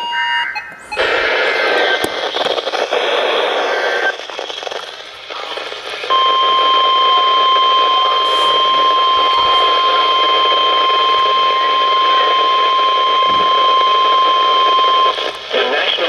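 NOAA weather radio sounding a Severe Thunderstorm Warning. Buzzy digital alert-header bursts play for the first few seconds. Then the long, steady, single-pitch warning alarm tone holds for about nine seconds and cuts off suddenly near the end.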